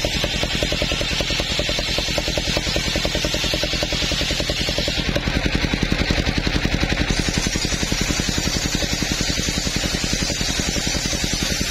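Engine-driven circular saw bench ripping a coconut-wood plank: the engine runs with a fast, even pulse under load while the blade hisses through the wood.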